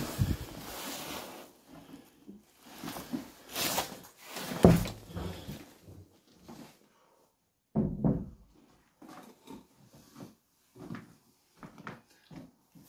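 Irregular knocks, thuds and scuffs of footsteps and handling noise as the camera is carried through a debris-strewn room. The loudest thuds come almost five seconds in and again about eight seconds in, followed by smaller, sparser taps.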